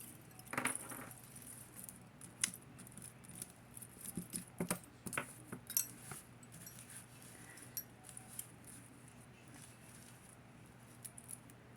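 Scattered light clicks and clinks of a metal and rhinestone statement necklace being handled and untangled, its beads and links tapping together.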